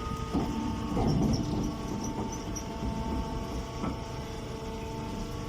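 A machine running with a steady hum and low rumble, broken by a few short knocks.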